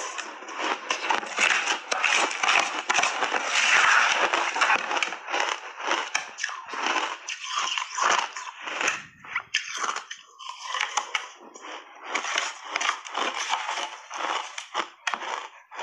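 Close-miked crunching and chewing of a big mouthful of shaved ice coated in matcha powder. The crunching is dense for the first few seconds, then breaks into separate chewing crunches that repeat to the end.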